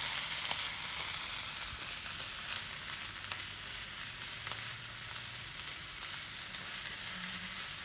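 Vegetables sizzling steadily in a hot wok as a wooden spatula stirs them through, with faint light scrapes and taps of the spatula against the pan.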